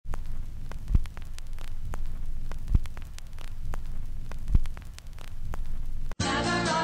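Vinyl-record-style surface noise: crackle and hiss over a low hum, with three evenly spaced dull thumps. Music starts abruptly near the end.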